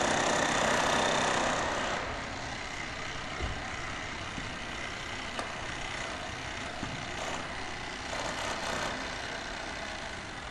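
City roadworks ambience: a heavy engine runs loudly for about the first two seconds, then drops back to a steady street and machinery noise broken by a few single knocks.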